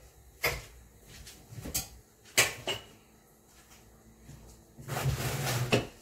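Kitchen handling noises: several sharp knocks and clicks, the loudest about two and a half seconds in, then about a second of scraping and rustling near the end.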